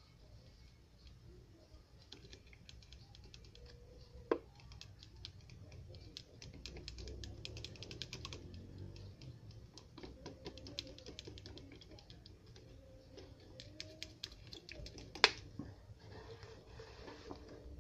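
Liquid poured from one plastic bottle into another, with a rapid fine crackling and two sharp knocks, one about four seconds in and a louder one near the end.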